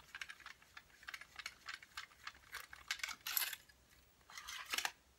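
Small telescopic fishing rod being pulled out section by section: a run of light clicks and rattles with a few short scraping slides as the sections extend.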